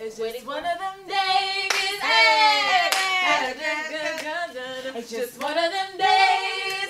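Women singing and vocalising together without accompaniment, with a few hand claps.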